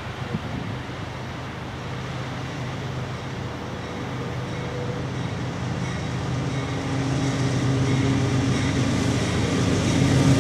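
Diesel-electric locomotive engine running with a steady low hum, growing gradually louder as the train draws nearer.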